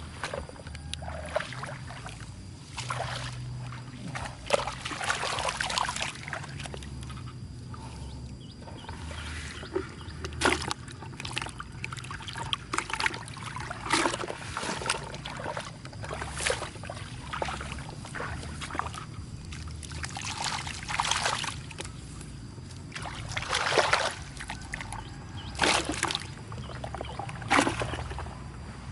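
Muddy water sloshing and splashing as hands grope through a mud hole for catfish, with irregular splashes every second or two over a low steady rumble.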